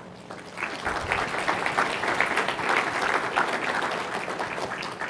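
Audience applauding. The clapping starts about half a second in, swells, and fades away near the end.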